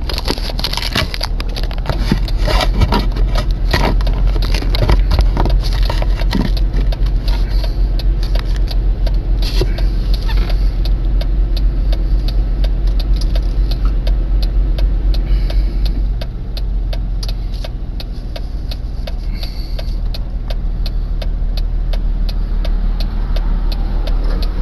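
Car engine idling while stopped, heard from inside the cabin as a steady low hum, with many small clicks and rattles over it, busiest in the first half.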